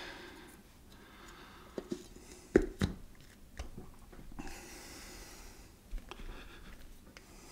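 A few soft knocks and taps from a metal can of contact cement and a wooden stir stick being handled and set down on a cloth-covered table, the loudest two close together a little before the middle, with a short hiss a little after it.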